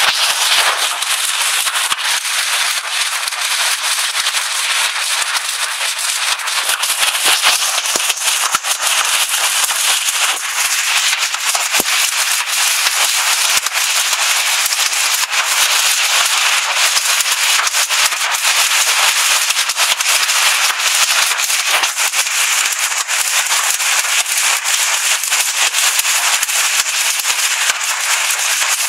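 Hailstorm: hailstones and rain pelting down, a dense, steady clatter of countless small impacts.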